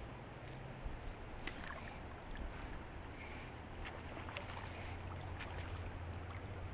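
Water lapping and sloshing close by, with a few sharp clicks scattered through it.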